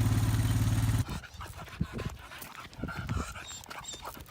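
A steady, engine-like drone cuts off abruptly about a second in. It is followed by a dog's soft, irregular panting and snuffling.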